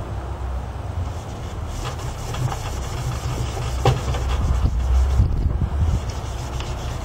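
A cloth rubbing by hand over a Ford Escort's plastic headlight lens, polishing it, with a scratchy rubbing sound and a sharper scrape about four seconds in. A steady low rumble runs underneath.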